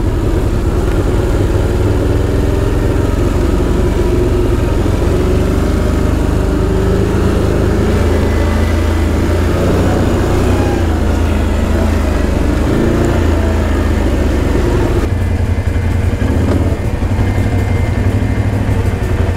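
ATV engine running under way, heard from the rider's seat. It holds a steady note, with shifts in pitch as the throttle changes and a drop in the upper sound about fifteen seconds in.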